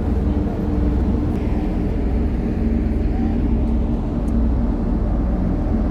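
Steady low rumble of a car ferry's engines and machinery heard from inside the ship, with a constant droning hum at several low pitches.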